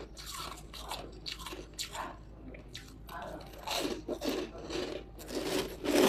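Hard frozen buckwheat ice chunks being bitten and chewed, a run of sharp, irregular crunches with denser bursts about four seconds in and near the end.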